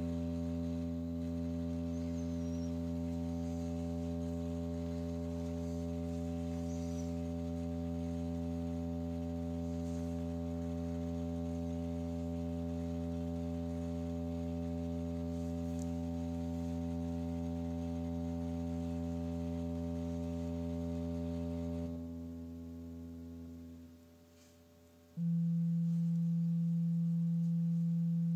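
Steady electronic drive tone of a cymatics rig: a low hum with a stack of overtones, holding one pitch. Near the end it fades to near quiet, and a new, louder and somewhat higher tone comes in about three seconds later.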